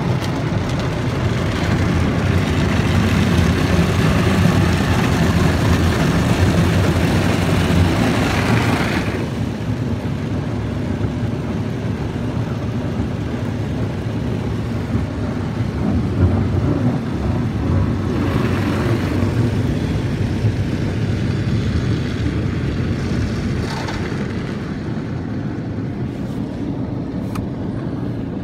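Istobal car wash running over the car, heard from inside the cabin: the rotating brushes scrub against the body and windows with a loud rushing noise for about the first nine seconds, then pull away, leaving a lower steady rumble of the wash machinery that swells briefly twice later on.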